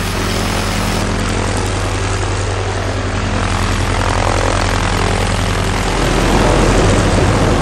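Pilatus single-engine propeller aircraft running, a steady drone of engine and propeller that grows louder and rougher about six seconds in.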